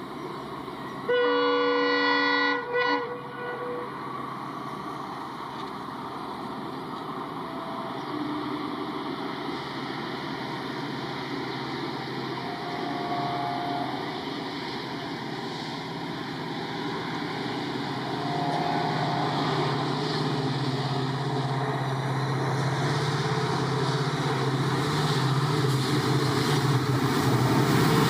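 Locomotive horn sounding one long blast about a second in, followed by a brief toot, then the steady rumble of a train, with a low engine hum swelling from about two-thirds of the way through as an EMD diesel locomotive draws near.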